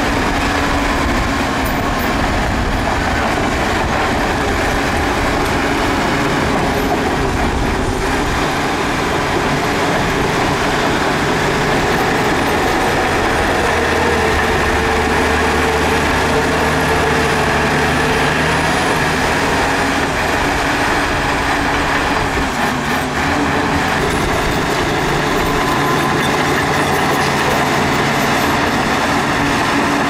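Shantui DH17B2 bulldozer's diesel engine running steadily and loudly, its note shifting a little higher and stronger around the middle as the machine works.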